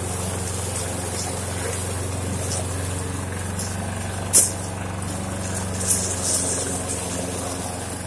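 Walk-behind gas lawn mower's single-cylinder engine running steadily at an even pitch while mowing. A few sharp clicks cut through, the loudest about four seconds in.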